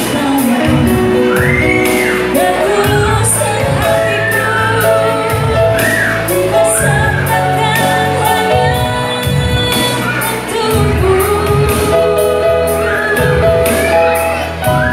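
A woman singing a song live into a microphone through a PA speaker, accompanied by an electronic keyboard playing held bass notes and a steady beat.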